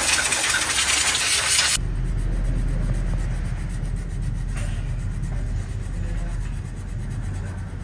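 Compressed-air gun hissing loudly as it blows dust out of a scooter's CVT pulley, cut off abruptly about two seconds in. Then comes a rough scratching of sandpaper rubbing on the centrifugal clutch shoe linings, roughening them so the dust-glazed linings grip and don't slip, over a low background rumble.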